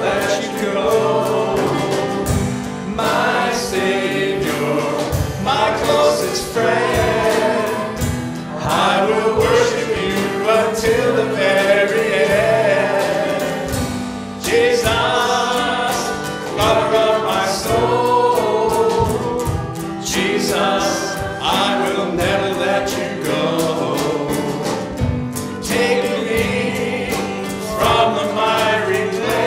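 A live church worship band playing a slow praise song: a man leads the singing over keyboard, acoustic guitar and drums, with several voices singing along.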